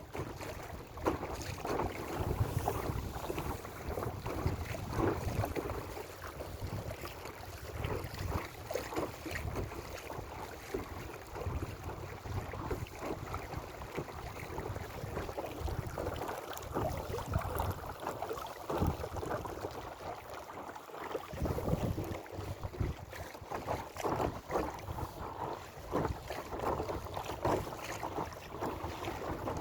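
Water splashing and lapping against the hull of a Tribord 5S inflatable sailing dinghy under way, with wind buffeting the microphone in a steady low rumble.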